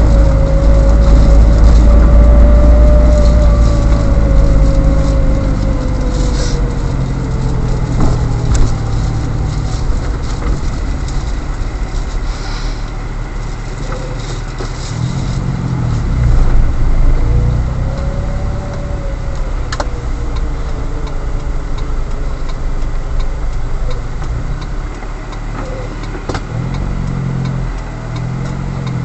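Car engine and road noise heard from inside the cabin as the car drives slowly in traffic, with a whine that rises and falls in pitch twice as it speeds up and slows. The low rumble is strongest in the first few seconds and eases off as the car closes up behind the vehicle ahead.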